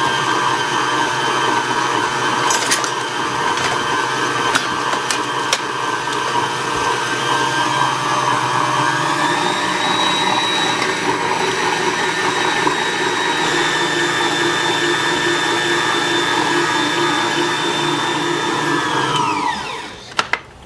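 Electric stand mixer running at speed, whipping butter for buttercream. Its motor whine steps up slightly about nine seconds in, and near the end the motor winds down with a falling whine.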